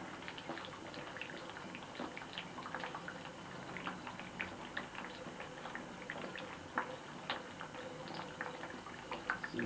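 Hands rubbing thick white lather over a man's face and neck: faint wet squishing with many small sticky clicks.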